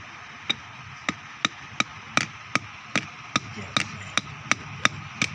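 Hammer striking metal in a steady rhythm, about three blows a second, starting about half a second in. Each blow rings briefly.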